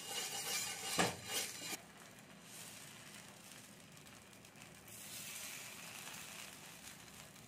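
Oil sizzling on a hot nonstick tawa as a cut potato is rubbed over it, with a couple of louder surges in the first two seconds. Then potato dosa batter is ladled on and spread, hissing steadily on the hot pan and growing a little louder near the end.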